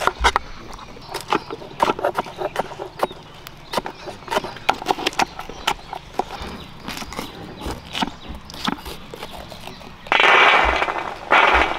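Kitchen knife chopping green bell pepper on a wooden board: quick, irregular chops, a few a second. Near the end, two longer scraping sounds.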